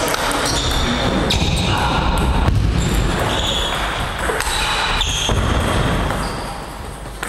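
Table tennis ball clicking off the bats and the table during a rally, over a steady, dense background noise.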